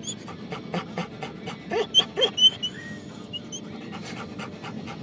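A dog panting rapidly and steadily, with a few short, louder high-pitched whines about two seconds in.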